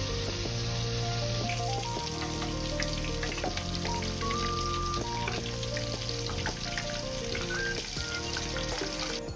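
Hot oil sizzling with dense crackling as potato wedges deep-fry plain, without batter, in a pot of oil. Background music plays throughout.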